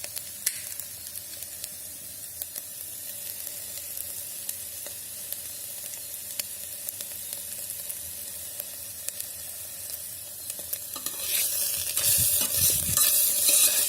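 Scrambled egg sizzling in the bottom of an electric kettle after the heating element is switched back on. There are scattered light clicks, and the sizzle grows clearly louder about eleven seconds in as the pan heats.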